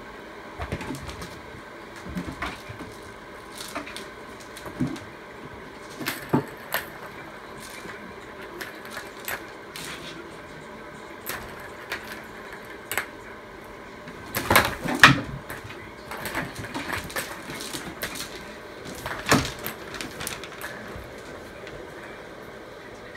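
A kitten playing with toys: scattered short knocks and rattles, the loudest cluster about two-thirds of the way through, over a steady room hum.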